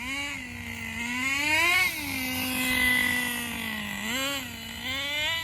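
Small nitro engine of a Traxxas 4-Tec RC car running while being warmed up, revved by the throttle: a quick blip at the start, a rise that peaks near two seconds, a steady spell, then two more quick blips near the end.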